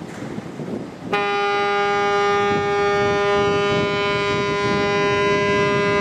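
A ship's horn sounds one long, steady blast starting about a second in, over wind on the microphone and the rush of water.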